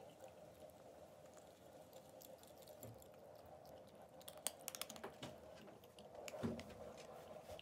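A cat eating from a bowl of dry kibble and canned food: faint chewing with scattered crisp clicks, bunched together about four to five seconds in, over a faint steady hum.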